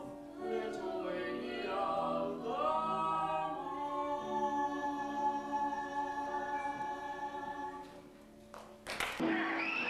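Operetta singing from the stage: voices glide into long held notes that fade down near the end. At about nine seconds in, a sharp click and an abrupt cut lead into a different sung passage.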